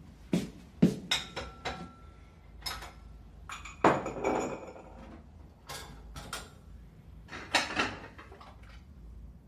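A string of sharp knocks and clinks of hard objects, like metal and glass clattering. The loudest hits come just under a second in, about four seconds in and about seven and a half seconds in, each followed by a short rattle.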